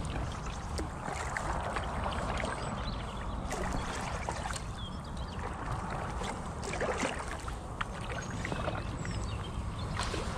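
Water lapping and trickling against the hull of an inflatable kayak as it glides along calm water, a steady wash with small scattered ticks and splashes.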